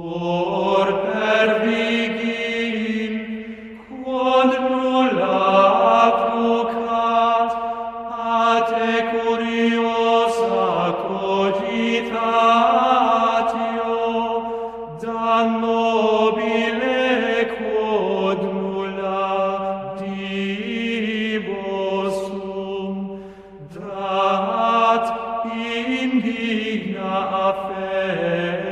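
Gregorian chant sung in Latin: a single melodic line of long held notes, moving in phrases with brief breaths between them, about 4, 15 and 23 seconds in.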